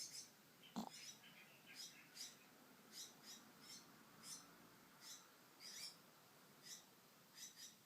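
A sleeping pet snoring faintly through its nose, giving short high whistling squeaks about twice a second, often in pairs, with one short lower snort about a second in.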